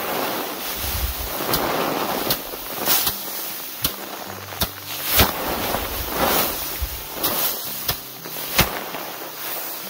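About a dozen sharp cracks or knocks at uneven intervals, roughly one a second, the loudest about five seconds in and near the end, over a rushing hiss that swells and fades.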